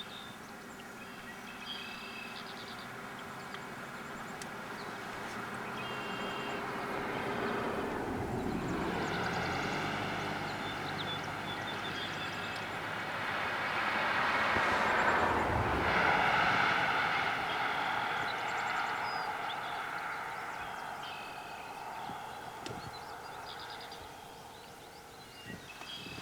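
A vehicle passing by: it swells slowly to its loudest a little over halfway through, drops in pitch as it goes past, then fades away. Short bird chirps come at the start and again near the end.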